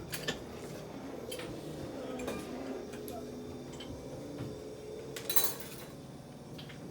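Scattered metallic clinks and knocks of tools and fittings being handled, the loudest about five seconds in, over a low murmur of voices.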